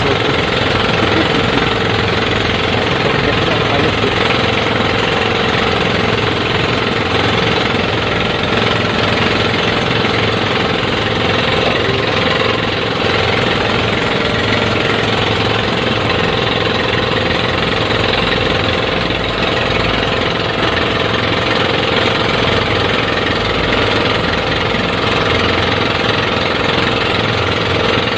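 Outrigger fishing boat's (bangka) inboard engine running steadily under way: a loud, even, rattling engine drone that doesn't change.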